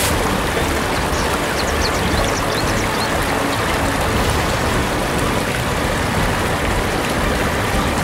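Waterfall and whitewater rapids rushing over rock ledges, a steady loud rush of water, with a few short high chirps in the first three seconds.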